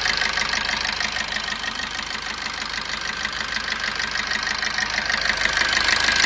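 Maruti Swift Dzire's common-rail diesel engine idling steadily with a fast, regular ticking, running on freshly serviced injectors after one failed injector nozzle was replaced.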